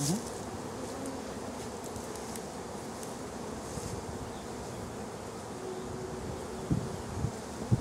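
Many honey bees flying close by, a steady buzzing hum of bees loose from an opened bee package.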